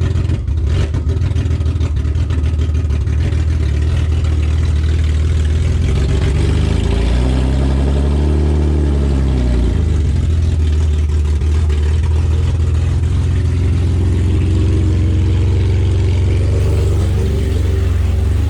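BMW car engine idling, revved once about seven seconds in and falling back to idle.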